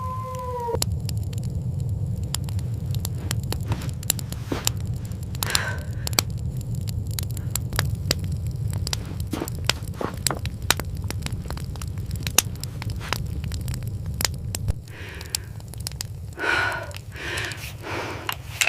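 Fire crackling, with many sharp pops over a steady low rumble. A few short animal-like cries come near the end.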